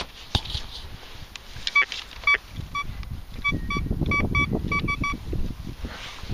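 Thracian metal detector giving a string of about ten short, high beeps as its search coil is swept over the dug hole and spoil, signalling a metal target still in the ground. A low rustling runs under the later beeps.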